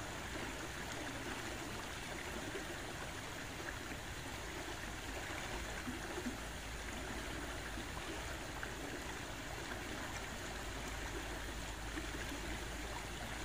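Swift river current rushing steadily past rocks.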